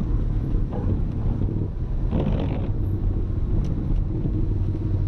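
Audi A3 1.8T turbocharged four-cylinder engine running low in first gear as the car rolls downhill on engine braking, a steady low rumble.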